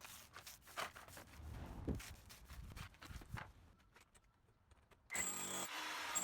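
Scattered knocks and scrapes, then about five seconds in a cordless SDS-MAX rotary hammer starts running in short on-off bursts with a high motor whine.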